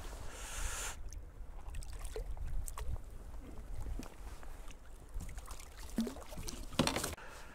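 Water lapping and slapping against a sit-on kayak's hull, with a low rumble of wind on the microphone. A short splashy hiss in the first second and a few faint knocks and clicks of gear on the kayak.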